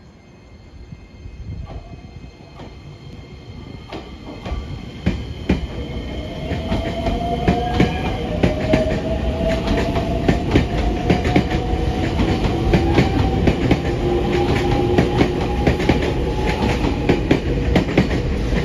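Nagoya Municipal Subway N3000-series electric train pulling out and gathering speed: a whine from the traction motors rises slowly in pitch over wheels clacking on the rails. The clacks come faster and the sound grows louder as it goes.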